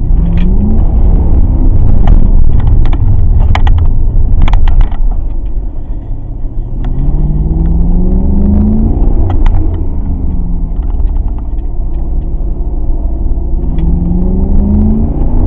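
Mercedes-Benz CLK 63 AMG's 6.2-litre V8 accelerating hard through the gears: a deep rumble with three rising sweeps in pitch, each falling back at an upshift, and a few sharp clicks. The engine pulls cleanly with no misfire, during a hard road test to heat a suspect fuel pump.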